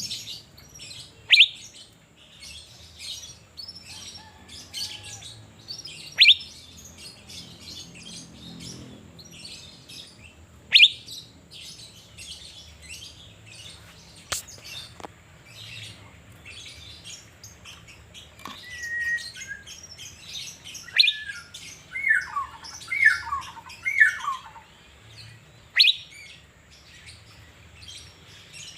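Cucak biru (Asian fairy-bluebird) calling: loud, sharp downslurred whistles every few seconds, and a quick run of three falling notes about two-thirds of the way in, over steady faint chirping.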